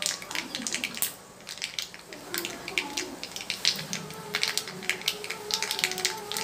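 Whole spices (mustard and cumin seeds with dried chillies) spluttering in hot mustard oil in an iron kadai: a quick, irregular crackle of sharp pops as the seeds burst. The popping eases off briefly about a second in, then picks up again.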